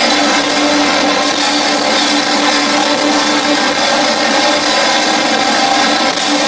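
A live industrial rock band plays loud and steady: a dense wash of distorted guitars and synths over one held low note, heard through an audience camera's microphone.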